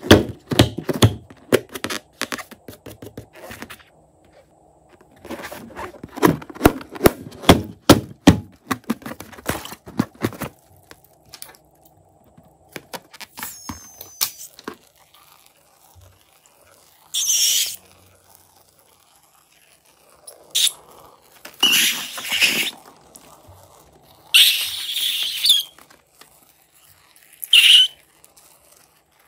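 Slime being worked by hand, with dense wet crackles and clicks in two long runs, then several separate hissing squirts of a second or so each, the last one short, near the end.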